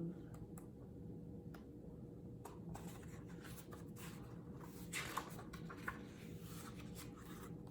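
Writing strokes on a paper chart: a run of short, scratchy strokes, with a few louder ones about five seconds in.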